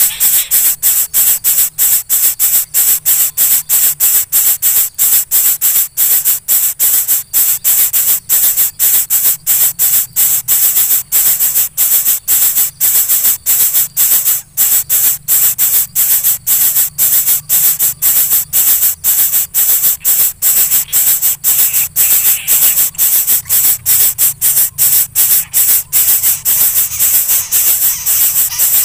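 Background music with a steady, fast beat, about three a second, carried mostly by a bright hissing top end.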